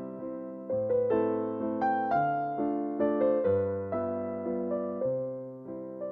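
Background music: a gentle electric piano melody, notes struck about every half second and fading.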